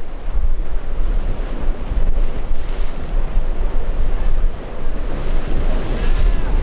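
Wind buffeting the microphone over a steady rush of surf and churning water, with a small outboard-powered boat running through it. The rush rises and falls in gusts.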